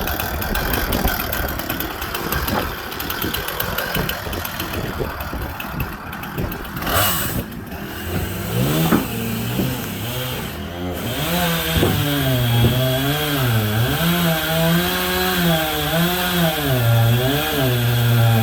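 Chainsaw running in a homemade chainsaw mill while ripping along a walnut log; from about halfway through its engine pitch rises and falls again and again as it cuts.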